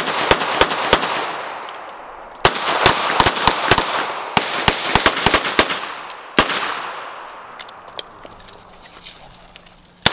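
Several revolvers fired at once, their shots overlapping in quick, uneven strings that echo and fade. Fresh volleys break out suddenly about two and a half seconds in and again past six seconds, thinning to scattered single shots near the end as shooters reload.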